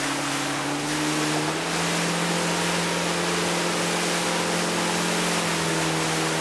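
Motorboat engine running under way, a steady hum under the rush of water and wind. The engine pitch rises about one and a half seconds in and eases back down near the end.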